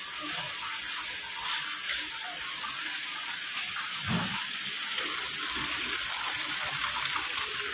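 Rainwater running across a flooded tiled floor: a steady rushing hiss of moving water, heard through a phone recording.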